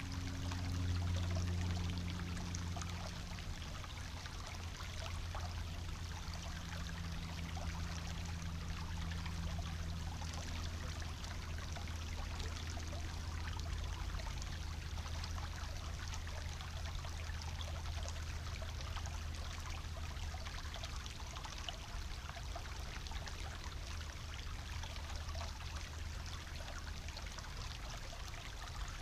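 Small shallow forest brook bubbling and trickling over stones: a steady babbling rush of water. Underneath runs a low hum, loudest in the first few seconds.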